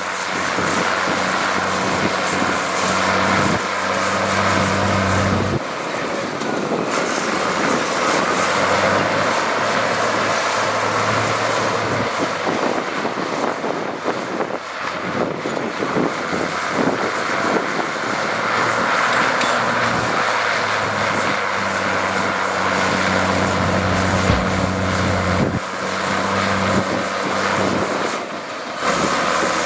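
Heavy diesel engine of an earthmoving machine running under load, its note rising and settling as it works.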